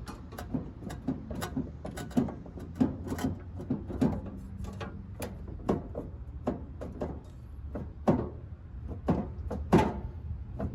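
Irregular clicks and knocks, about two a second, as parts of a Traeger Scout pellet grill are handled and worked loose during disassembly, over a steady low hum.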